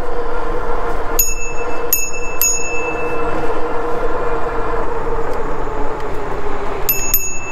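A fat-tire e-bike rolls along, making a steady hum that slowly falls in pitch. Over it, a bicycle bell dings three times in quick succession about a second in, and twice more near the end.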